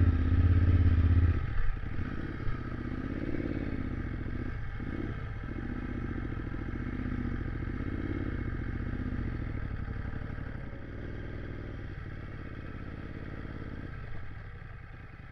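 Motorcycle engine running at low speed, loud and deep for the first second or so, then its pitch rising and falling with small changes of throttle, growing quieter about ten seconds in and again near the end.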